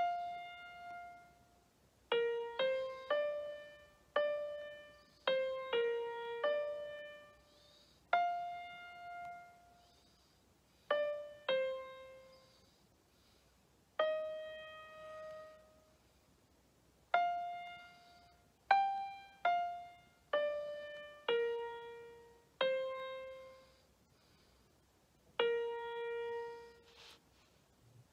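Piano sound from a tablet's on-screen keyboard app, pressed with the toes one note at a time: slow, uneven single notes, each struck and left to fade, sometimes two in quick succession, with pauses between.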